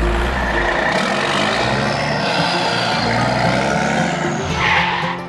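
Engine sound of a toy dump truck: a steady running rumble with hiss over it.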